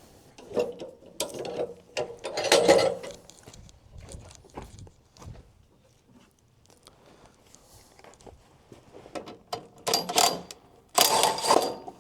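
Irregular mechanical clanking and rattling, loudest in two bursts about two seconds in and near the end, with scattered clicks between.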